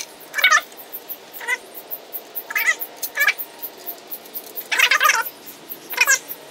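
An animal crying out in short, repeated pitched calls, about seven of them, each only a fraction of a second long and spaced unevenly.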